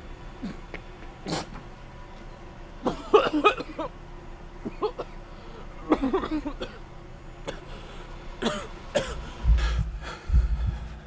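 A man coughing and groaning in short fits. Deep low thumps about one a second, like a heartbeat, come in near the end.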